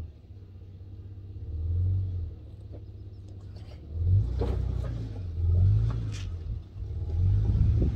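Toyota Land Cruiser FZJ80's 4.5-litre straight-six running low and slow as the truck crawls over rock ledges. The revs rise and fall several times. Sharp knocks and crunches of the tyres on rock come in the second half.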